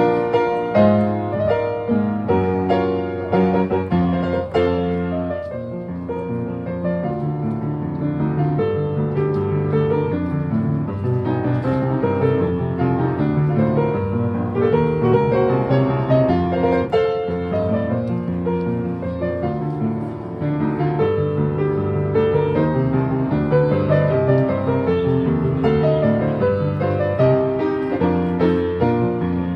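Solo piano being played continuously: a busy flow of notes over a steady bass.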